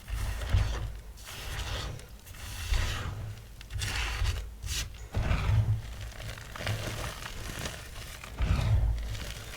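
Small magnesium carbonate gym chalk blocks being crushed, giving irregular crunches and crumbling with dull thumps.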